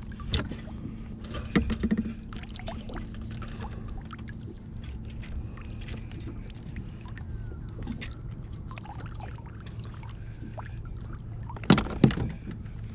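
Fishing gear being handled on a kayak while a fish is played: scattered irregular clicks and knocks over a steady low hum, with a louder clatter near the end as the landing net is brought in.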